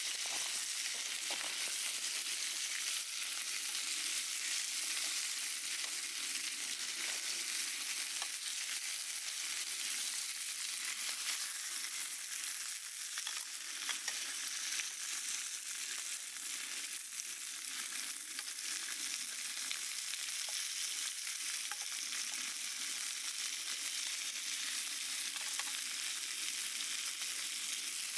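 Food frying in a pan over a fire: a steady sizzling hiss with many small crackling pops throughout.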